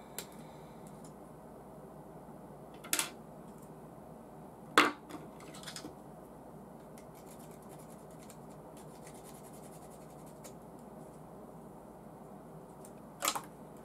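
Sharp snips of hobby side cutters cutting plastic model-kit parts off the sprue, a few separate cuts with the loudest about five seconds in. Faint small plastic clicks of parts being handled come in between.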